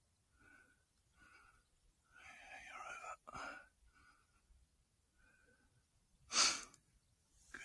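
Faint whispering and breathing close to the microphone, with one short, sharp, loud burst of breath-like noise about six and a half seconds in.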